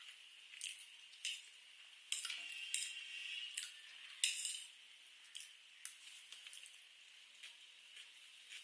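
Close-miked eating of spicy noodles and french fries: a run of sharp chewing and mouth clicks, with a longer busy noisy stretch about two to three and a half seconds in and the loudest click just after four seconds, then sparser, fainter clicks.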